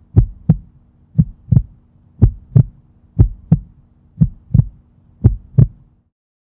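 Heartbeat sound effect: paired low thumps in a lub-dub rhythm, about one pair a second, over a faint steady hum. It stops about six seconds in.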